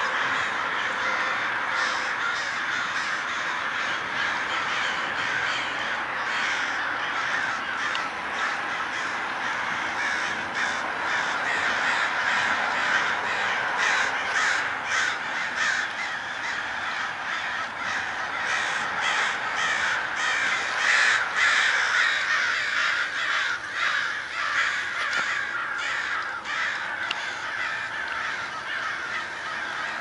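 A large flock of crows cawing, many birds calling over one another in a steady, unbroken din.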